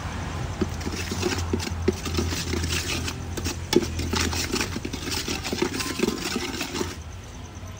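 Metal ladle scraping and knocking irregularly against a wok of bubbling sauce as it is stirred. The knocks stop about seven seconds in.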